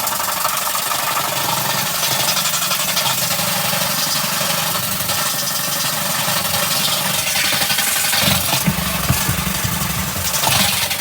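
Portable washing machine running, its motor humming steadily under a noisy wash of water, growing rougher and louder about eight seconds in.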